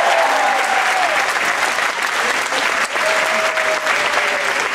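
Gym audience applauding steadily, with a few cheering voices calling out near the start and again about three seconds in.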